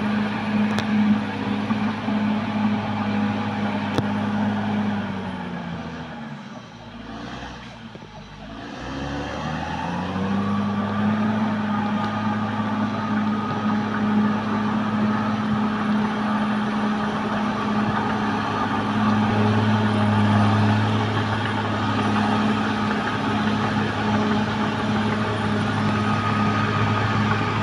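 Caterpillar D6R XL bulldozer's diesel engine running at a steady speed. About five seconds in, its note falls and the sound drops away. Around ten seconds in it climbs back up and runs steadily again.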